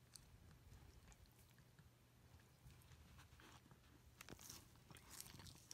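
Faint wet licking and mouth clicks from a Pembroke Welsh Corgi in labour licking herself while she pushes, scattered at first and busier from about four seconds in, over a low steady hum.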